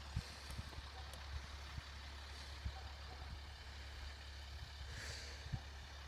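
Heavy diesel machinery at track works running with a steady low rumble, with a few faint clicks and knocks over it.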